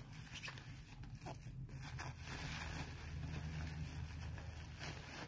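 Bubble-wrap packaging crinkling and rustling in irregular crackles as hands handle it, over a steady low hum.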